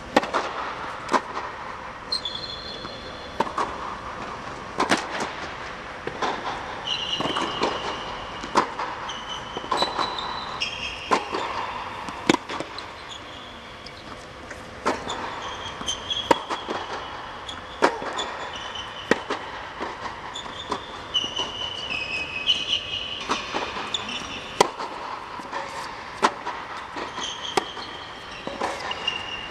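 Tennis rally: sharp pops of the ball off the rackets and court, roughly one a second, with many short, high squeaks of tennis shoes on the hard court.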